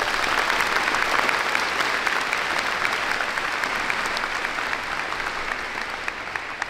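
A large crowd applauding, the clapping slowly dying down toward the end.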